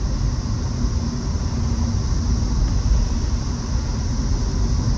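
Car driving along a road: a steady low rumble of tyres and engine with an even hiss, heard from inside the car.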